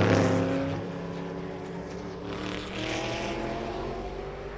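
Le Mans prototype or GT race car passing close on a wet track, loudest right at the start, its engine note dropping away. A couple of seconds later an engine note climbs again as a car accelerates. A hiss of spray runs under it all.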